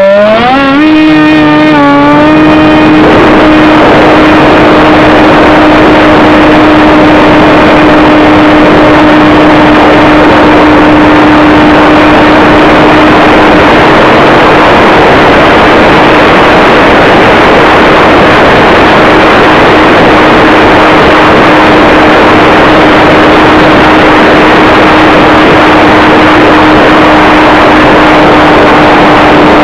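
Electric motor and propeller of a flying-wing RC model, heard from a camera on board: the motor spins up with a rising whine over the first second or two, then holds a steady high drone under heavy wind rush for the rest of the flight.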